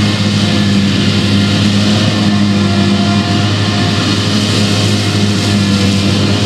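Claas Jaguar 970 self-propelled forage harvester at work chopping rye, with a John Deere 6215R tractor and silage trailer running alongside: a steady, loud, deep engine drone under an even hiss of crop rushing through the chopper and spout.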